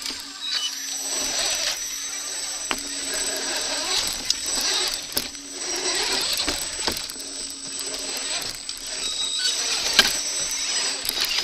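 Radio-controlled rock crawler's electric motor and gear train running with a steady whine, heard close up from a camera mounted on the crawler, with sharp knocks and scrapes as it crawls over rocks.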